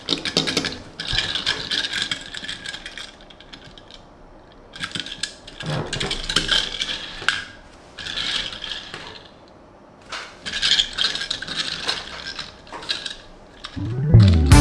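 Tomica die-cast toy car and its packaging being handled: clusters of small clicks, rattles and scraping in about four spells, with short quieter pauses between them.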